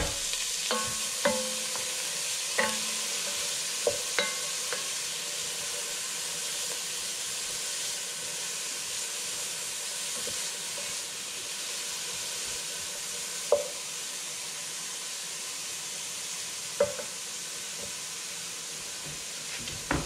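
Diced carrots, red bell pepper and red onion sizzling steadily as they sauté in a stainless steel pot. A wooden spoon stirs and knocks against the pot several times in the first few seconds, and twice more later.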